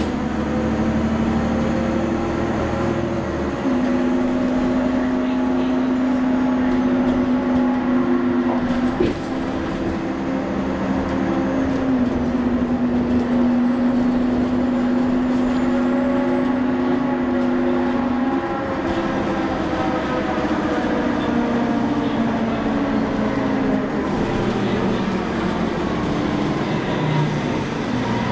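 Cummins ISL9 diesel engine and ZF 6AP1200B automatic transmission of a 2011 Nova Bus LFS city bus, heard from inside the passenger cabin while the bus drives. A steady drone carries whining tones that shift in pitch in steps a few times and fall away near the end.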